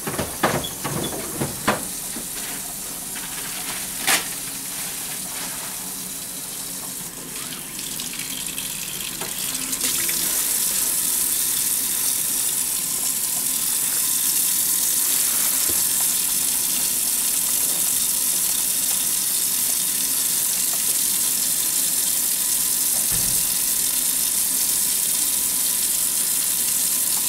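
Tap water running into a stainless steel sink while hands are lathered and rubbed under it, the flow getting louder about ten seconds in and then staying steady. A few sharp knocks in the first two seconds and another about four seconds in.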